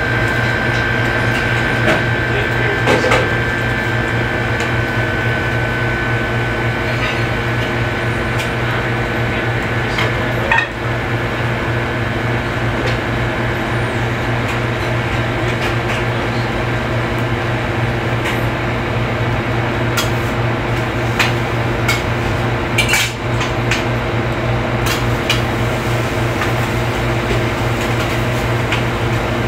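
Busy commercial kitchen: metal utensils and pans clink and knock on a flat-top griddle and range at irregular moments over a steady mechanical hum.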